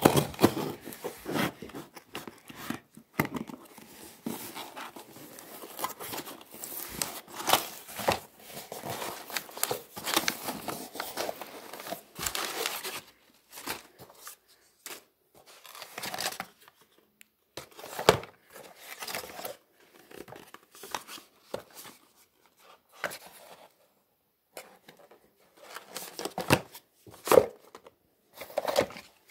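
Packing tape on a cardboard box being cut and torn, followed by the rustle and crinkle of cardboard flaps and a paper packing slip as the box is opened and unpacked. The first half is a dense run of tearing and rustling; the second half has scattered short rustles and knocks with pauses between them.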